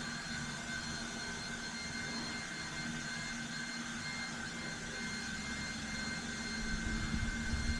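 A machine running steadily: a constant whine with a few held tones over a low hum, the low rumble growing a little near the end.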